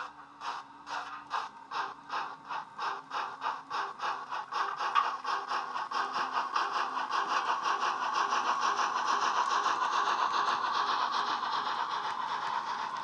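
Loksound 5 DCC sound decoder playing the Wheeltappers Bulleid Battle of Britain steam sound file through a small bass-enhanced speaker in a Hornby OO model locomotive: exhaust chuffs quickening as the train picks up speed, from about two a second until they run together into a continuous rush after about six seconds.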